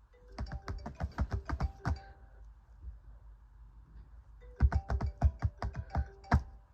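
Fingers tapping out an iPhone ringtone's rhythm on a MacBook case: two runs of quick, sharp taps, each about two seconds long, with a pause between them.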